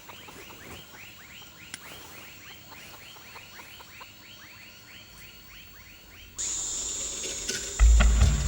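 A small animal's short chirping call, repeated rapidly about four to five times a second, in a night-time ambience. About six seconds in, the sound changes abruptly to a louder hiss, and a deep thump follows near the end.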